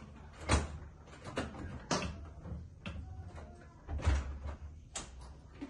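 A few scattered knocks and clicks with dull thumps from the front door being handled just before it opens.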